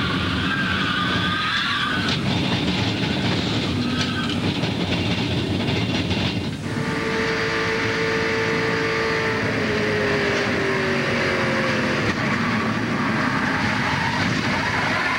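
Onboard audio from a NASCAR Busch Series stock car at racing speed: its V8 engine running hard under wind and road noise, with a wavering high whine in the first couple of seconds. About six and a half seconds in, the sound drops briefly as the feed changes camera, and then a steady engine note slowly falls in pitch.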